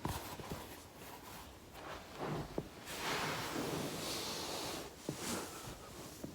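Body shifting on a foam roller: rustling, scuffing noise with a few small clicks, one sharper click about two and a half seconds in.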